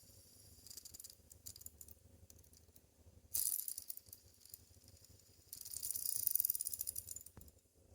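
Linkage fidget spinner, a clone of the ACEdc Thunder, its linkage parts rattling with fast, dense clicks. There is a short burst about three and a half seconds in and a longer one of nearly two seconds from about five and a half seconds, with fainter ticks between.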